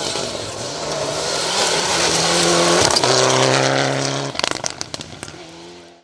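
Mitsubishi Lancer Evolution rally car accelerating hard on a gravel stage, its engine rising in pitch with a gear change about three seconds in. About four seconds in the driver lifts off and the engine gives a quick string of sharp cracks before picking up again and fading away.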